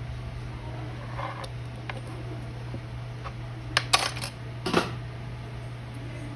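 Small metal objects clinking against a hard surface, a few sharp clicks clustered around the middle, over a steady low hum.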